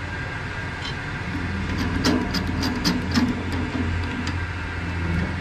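Steady low hum of workshop machinery, with a quick run of light metallic clicks about two seconds in and one more a little later as a handmade 30 bore pistol is handled.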